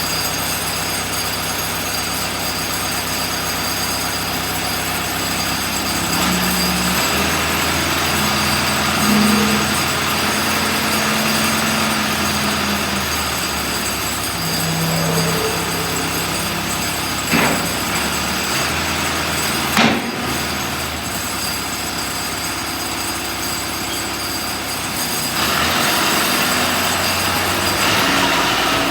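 Case 580C backhoe loader's four-cylinder diesel engine running, its note shifting several times as it changes speed or takes load. Two sharp metallic knocks come close together about two-thirds of the way through.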